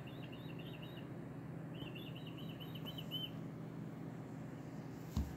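Bird song from a bird video playing on a TV: two quick trilled phrases, one fading about a second in and another from about two to three seconds in, over a steady low hum. A short dull thump just before the end.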